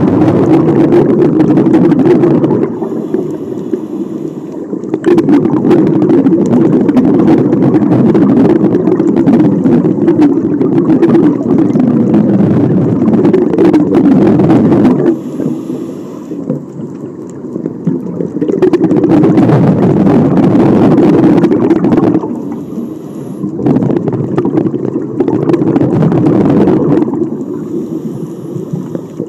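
Scuba diver breathing through a regulator underwater: long stretches of low rumbling bubbles from exhaled air, broken four times by quieter pauses of two to three seconds as the diver inhales.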